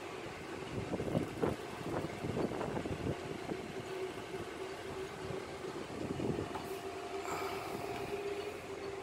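A steady mechanical hum holding one constant tone, with a few dull knocks in the first three seconds.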